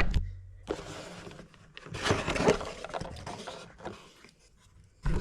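Packaging rustling and scraping as a pedal box is opened by hand, in two bursts, the second longer and louder, then dying away.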